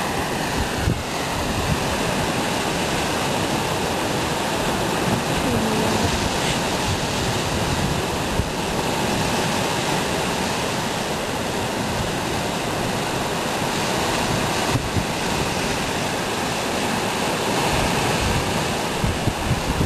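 Heavy sea surf breaking and washing around rocks below a cliff, a steady rushing noise. Wind buffets the microphone in low rumbles, strongest near the end.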